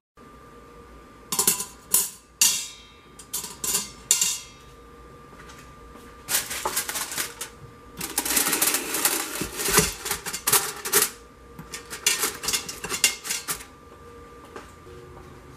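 A metal trivet clanking sharply against a stainless steel Instant Pot inner pot, several times. Then, from about six seconds in, aluminium foil crinkling and rustling as a foil-covered baking dish is lowered in and settled onto it.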